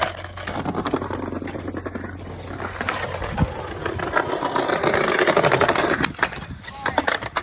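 Skateboard wheels rolling on hard ground: a steady grinding roll with many small clicks, growing louder past the middle, then a few sharper knocks near the end.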